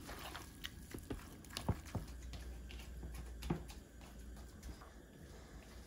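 Hands squishing and kneading seasoned gamtae seaweed in a plastic bowl: soft wet squelches with scattered sharp little taps.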